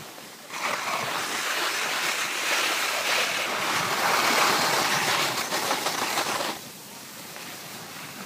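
Skis sliding over packed snow in a steady hiss as the skier glides downhill, starting about half a second in and dropping away about six and a half seconds in.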